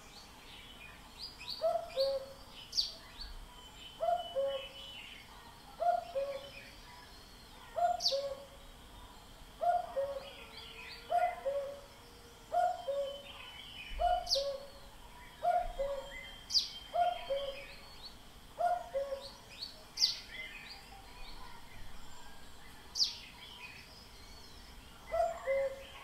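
A common cuckoo calls its two-note, falling "cuck-oo" about a dozen times in a steady run, roughly once a second, then pauses and gives one more call near the end. Other small birds chirp sharply and high over it.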